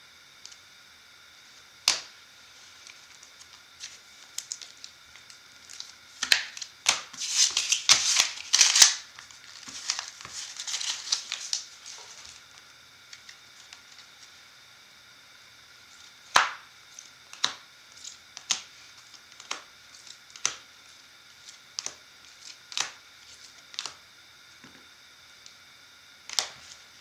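Trading cards and their hard clear plastic holders being handled: sharp clicks and taps, with a stretch of dense plastic rustling and scraping from about six to twelve seconds in, then single clicks about a second apart.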